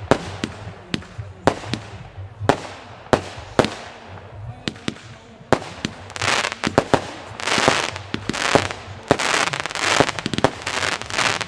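Klasek 192-shot firework compact firing: a string of sharp bangs about two a second as the shots launch and burst. From about five and a half seconds, long stretches of dense hissing crackle fill the gaps between the bangs.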